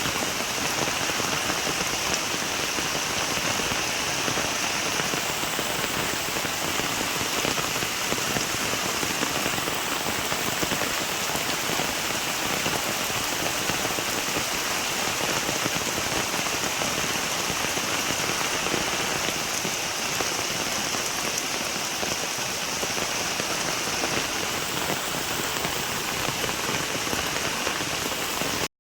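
Steady rain falling, an even hiss of drops pattering on the ground and surfaces.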